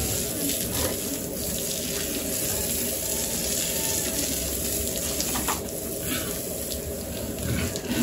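Water spraying from a hose nozzle onto pigs: a steady hiss of running water. A steady low hum runs underneath.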